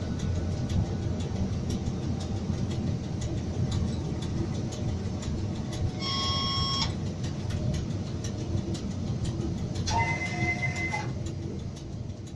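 Electric train running along the track, heard from the cab: a steady rumble with faint clicks of the wheels. There are two brief tones, about six and ten seconds in, and the sound fades down near the end.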